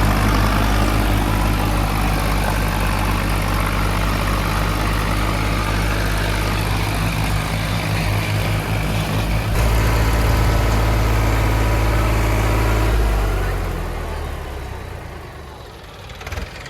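Heavy diesel engine running steadily with a deep low hum. It grows louder for a few seconds past the middle, then dies down over the last few seconds.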